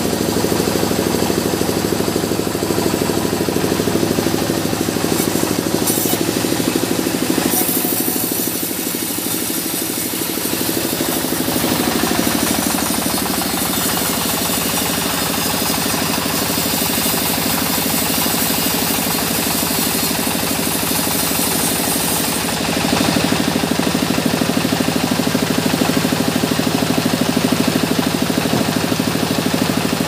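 Band sawmill running steadily with an even, rapid pulsing hum from its drive, while the band-saw blade cuts through a mahogany log. A higher hiss over the hum grows stronger for a few seconds about 8 seconds in, and again from about 23 seconds on.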